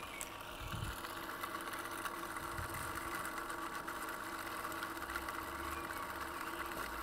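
Food processor motor running steadily at a constant pitch while oil is trickled in to emulsify an aioli of egg yolks, garlic and mustard.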